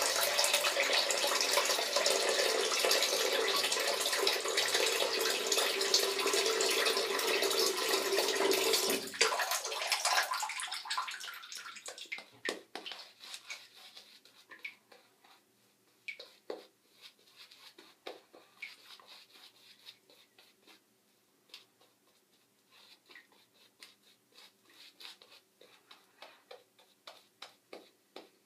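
Bathroom tap running water into a sink for about nine seconds, then shut off. After that, only quiet, scattered small clicks and handling sounds.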